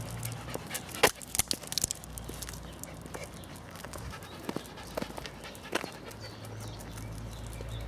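Poodle panting, with a cluster of sharp clicks and knocks about a second in, the loudest of them right at the start of the cluster.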